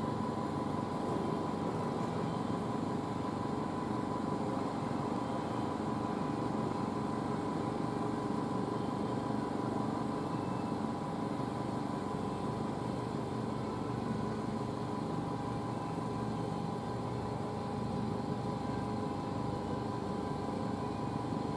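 Diesel engine idling steadily: an even low hum with a steady high whine above it, unchanging throughout.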